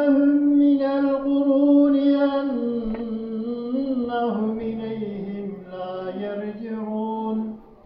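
A man reciting the Quran in a slow, melodic chant, holding long drawn-out notes with occasional glides between them. His last phrase sinks lower and the voice stops near the end.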